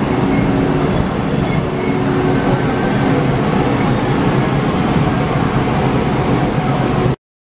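Taiwan Railways electric multiple-unit train moving slowly along a station platform: a steady rumble of wheels and running gear with a low motor hum. The sound cuts off abruptly about seven seconds in.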